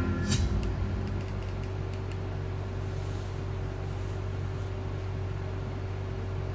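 Steady low hum and room hiss with no programme sound, and a few faint clicks in the first two seconds.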